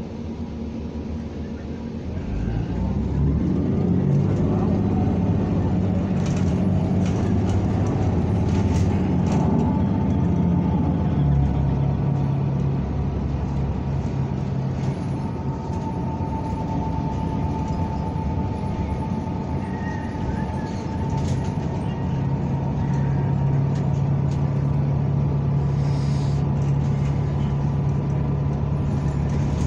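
A NABI 45C-LFW city bus running, heard from on board. About two seconds in the engine gets louder and rises in pitch as the bus picks up speed, then runs steadily. Clicking rattles come a few seconds later.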